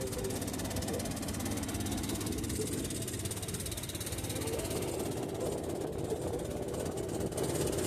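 A boat's motor running steadily, with a fast, even pulsing beat.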